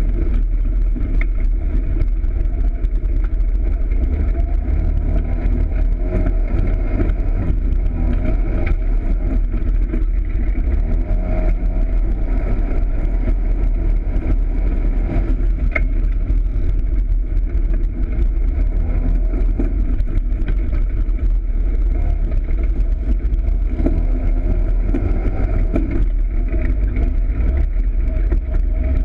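Polaris RZR side-by-side's engine running steadily while driving on a dirt track, heard from on board.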